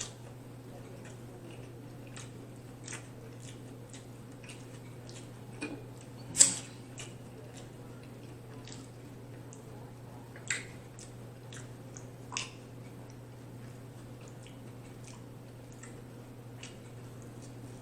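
Close-miked mukbang eating: a person chewing steak tacos, with scattered wet mouth clicks and smacks and one louder sharp click about six and a half seconds in, over a steady low hum.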